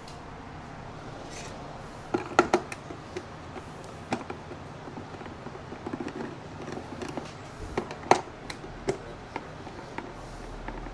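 Scattered sharp clicks and knocks of an Oster blender's plastic motor base and hand tools being handled while the base is opened, with a cluster of loud clacks about two seconds in and another loud one about eight seconds in.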